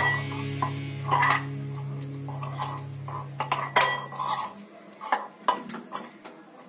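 Metal spoon stirring a thick spice paste in a glass bowl, clinking and scraping against the glass in irregular taps, the loudest a little before four seconds in.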